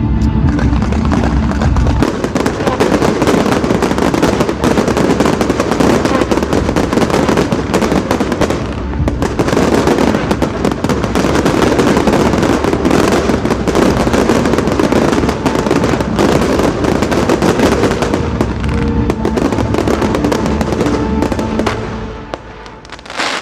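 Fireworks barrage: dense, rapid bangs and crackling running on without a break, over music. It thins out near the end, with one last bang.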